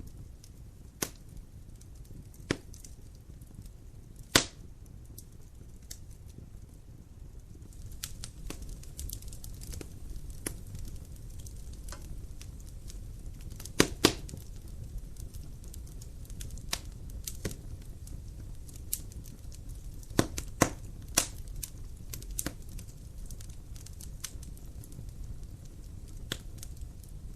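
Dry firewood burning in a fireplace: a low steady rumble of flame under scattered sharp crackles and pops of the burning logs. The crackling gets busier about a third of the way in, with a loud snap about four seconds in, a pair near the middle and a quick cluster about three quarters through.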